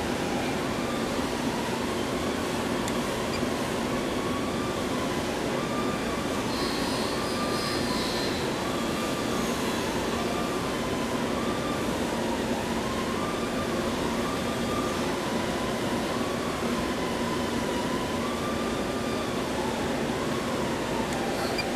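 Steady machinery and ventilation hum of a workshop, with a faint high tone that steps back and forth between two close pitches every second or so.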